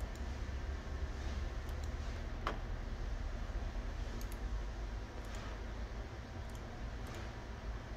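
A handful of scattered single clicks of a computer mouse, the sharpest about two and a half seconds in, over a steady low hum.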